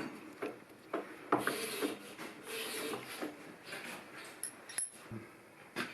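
Light handling noises: scattered small knocks and clicks with some rubbing, as tools and parts are moved about.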